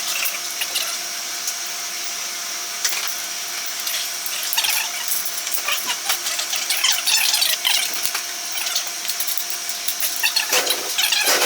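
Wrench work on the motorcycle's exhaust header nuts and flange bolts: irregular metallic clicks and scrapes over a faint steady tone, busier and louder near the end.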